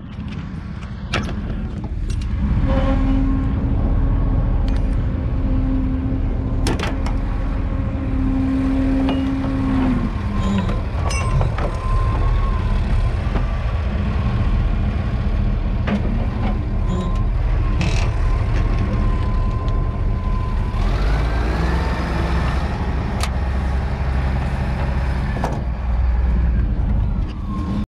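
Wheel loader's diesel engine running as it lifts a junk car off a trailer, revving up and holding higher about three quarters of the way through, with a few sharp metal clanks.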